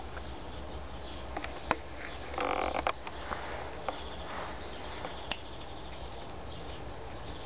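House cat chewing and crunching on freshly caught prey: a handful of sharp crunches and clicks, the loudest just under two seconds in, and a short rasping crunch of tearing and chewing around two and a half seconds in.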